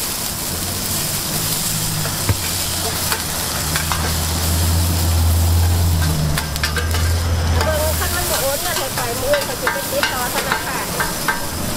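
A mussel pancake sizzling steadily as it fries in oil on a large flat pan, with metal spatulas clicking and scraping against the pan now and then. A low hum rises under the sizzle and fades about eight seconds in.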